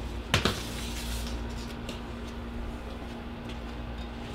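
Steady low background hum with a faint constant tone, and one brief sharp noise about half a second in.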